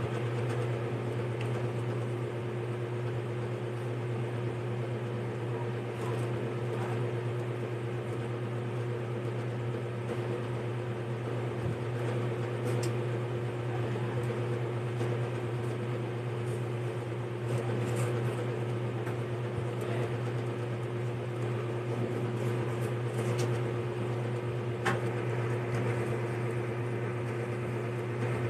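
Steady mechanical hum from a running motor, a low drone with a higher steady tone above it, and a few faint clicks and taps scattered through it.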